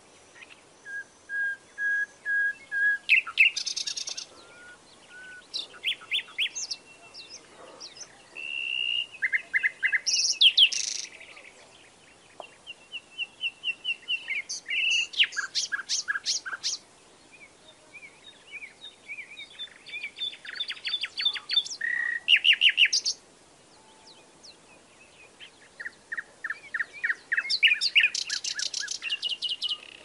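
A songbird singing in about six phrases of rapid repeated notes, whistles and trills, each a few seconds long, with brief pauses between them.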